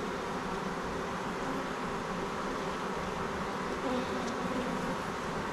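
Many honeybees buzzing steadily around an opened hive, an even hum.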